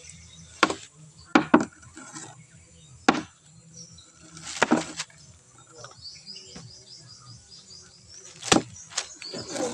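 Irregular sharp taps and cracks of dry sticks and palm fronds being handled and knocked together by a small child, about eight in all, the loudest near the start and near the end. A steady high chirping of insects runs underneath.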